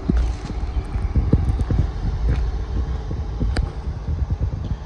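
Footsteps crunching unevenly on loose gravel, under a steady low rumble on the handheld microphone, with one sharp click about three and a half seconds in.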